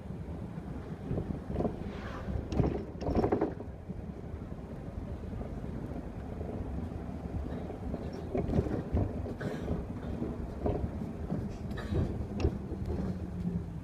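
Mercedes city bus running along a street, heard on board: a steady engine and road rumble with several clusters of knocks and rattles, the loudest about three seconds in.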